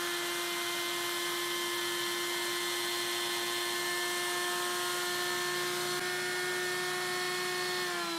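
Table-mounted router with a spiral upcut flush-trim bit, running at full speed with a steady high whine while Morado is flush-trimmed to a maple template. Near the end the pitch starts to drop as the router is switched off and spins down.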